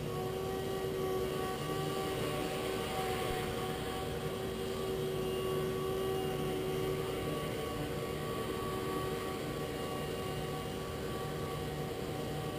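Blade 130X micro electric RC helicopter hovering, its motors and rotors giving a steady whine of several held tones at a nearly constant pitch. Its tail boom is pushed fully home, the fix that cured its vibration.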